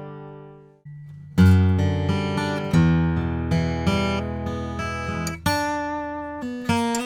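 Eastman E1D dreadnought acoustic guitar, spruce top with sapele back and sides, played solo. A held chord fades out and stops just under a second in. After a short pause, playing resumes with strummed chords and picked notes.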